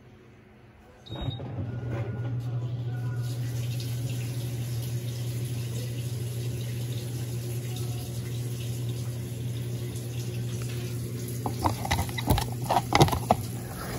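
Electrolux LTC07 top-loading washing machine's drain pump starting about a second in and running with a steady hum while water drains out, ahead of the spin. Several sharp knocks and clicks come near the end.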